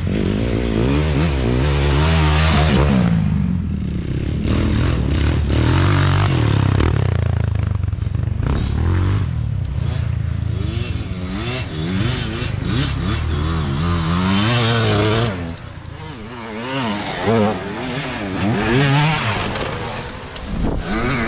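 Dirt bike engines revving up and down hard as riders pass close by one after another. The pitch rises and falls again and again, with a brief lull about fifteen seconds in.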